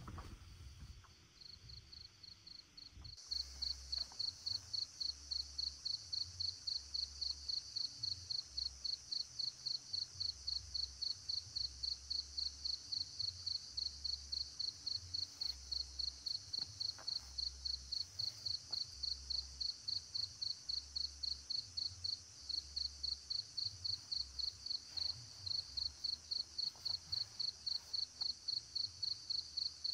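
Crickets chirping in a steady, even rhythm of about three high chirps a second, growing louder about three seconds in.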